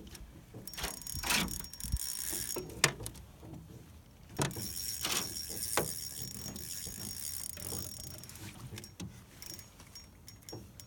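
Fishing reel's drag buzzing as a hooked lake trout runs and pulls line out. A high steady buzz goes from about a second in until near the end, with a few sharp knocks of the rod and reel being handled.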